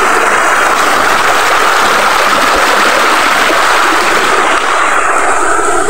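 Steady, loud rushing of running water, with no break.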